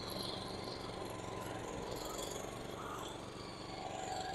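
Weibang petrol rotary lawn mower engine running steadily under load while it cuts long, wet grass and leaves.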